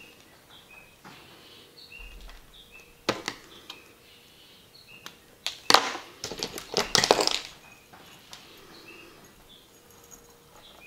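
Clicks and crackling from handling and pulling nylon fishing line while tying on a small swivel: one sharp click about three seconds in, then a denser run of clicks and crackles in the middle. A bird chirps over and over in the background.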